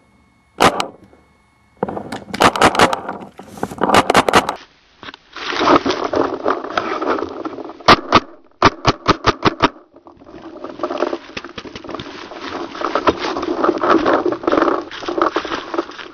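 Paintball markers firing in quick strings of sharp pops, one run of about eight at roughly five shots a second, with a rough rushing noise in between.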